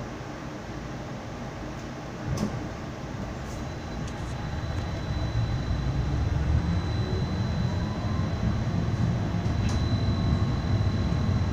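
Streetcar heard from inside the cabin, standing still and then pulling away: a sharp knock about two seconds in, then the low rumble of the car grows louder as it gets moving, with a thin steady high whine from the drive coming in alongside.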